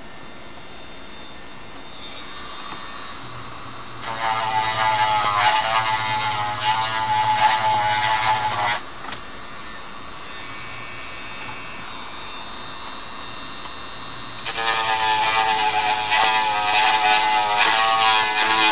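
Dremel Moto-Tool rotary tool running at low speed, sanding away the edge of ABS plastic armour with a wavering whine. It grinds loudly twice, from about 4 to 9 seconds in and again from about 14 seconds on, and is much quieter in between.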